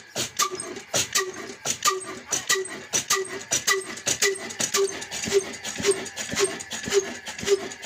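Old 22 hp Ruston Hornsby diesel engine running slowly, each firing stroke puffing out of its tall exhaust stack in even beats about twice a second, each with a short ringing note.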